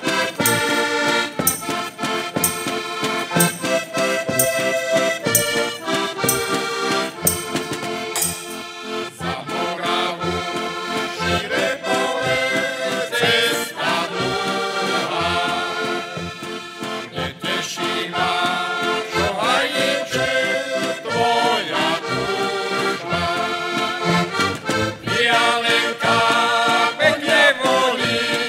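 Several heligonkas, Slovak diatonic button accordions, playing a traditional folk tune together, with sustained chords over a steady bass beat.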